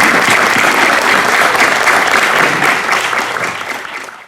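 Audience applauding: dense, steady clapping from many hands that fades away near the end.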